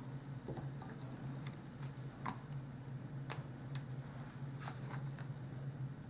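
Faint, irregular small clicks and taps of fingers handling tiny paper pieces and hot-glue strings on a cutting mat, about eight in all, over a steady low hum.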